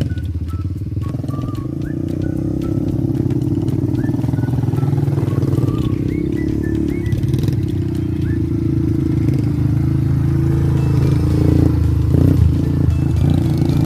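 Quad bike (ATV) engine running at low throttle, getting louder toward the end as the machine comes close.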